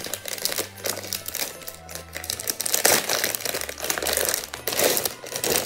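Crinkling and rustling of a clear plastic packet and tissue paper handled by hand as a present is unwrapped, with irregular sharp crackles.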